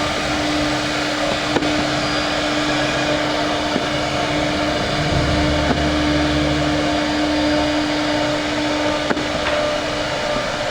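Electric woodworking machine motor running steadily, a constant whirring hum, with a few sharp clicks.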